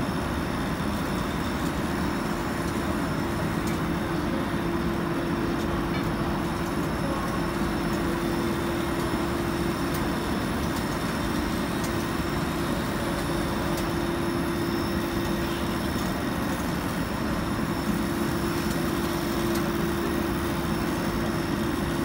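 EPDM rubber insulation-pipe extrusion and vulcanization line running: a steady machine drone with a held mid-pitched hum over it.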